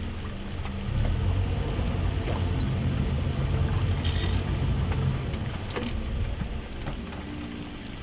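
Low steady hum of a boat's outboard motor at idle under a broad rumble that swells for a few seconds from about a second in, with a brief hiss about four seconds in.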